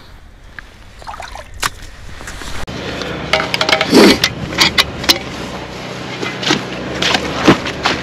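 Ice-fishing gear being handled and set up on snow: a run of sharp clicks, knocks and scrapes from metal poles and equipment, the loudest knock about four seconds in. The first couple of seconds are quieter, with only a few faint clicks.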